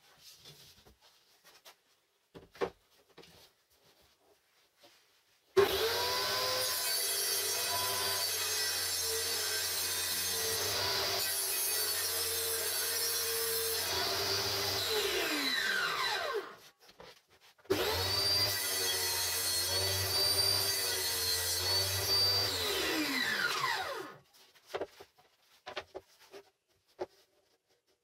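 Table saw switched on and run while an MDF panel is fed through the blade, then switched off, its whine falling as the blade winds down. The same happens a second time. Light taps and knocks of boards being handled come before and after.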